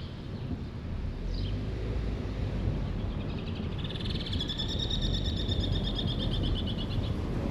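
Steady low rumble of a car driving, road and wind noise. Over it come a couple of short high chirps near the start, then from about three seconds in a fast, pulsing high-pitched trill that lasts some four seconds.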